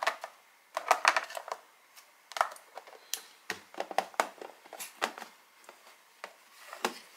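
Thin plastic film crinkling and crackling as hands press it flat over a plastic container, in quick irregular clicks and rustles.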